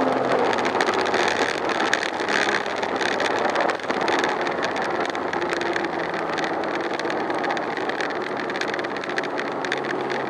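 Road and wind noise inside the cabin of a Porsche Boxster S (987) slowing down from speed. The mid-mounted flat-six is heard only faintly beneath the steady rush, its revs falling away at the start.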